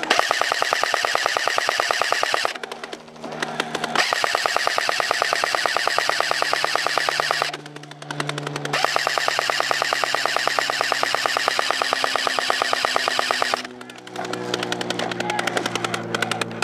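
A&K M249 SAW airsoft electric machine gun firing long full-auto bursts, a rapid even clatter of shots. It comes in three long strings broken by short pauses, with quieter rapid fire in the gaps and near the end.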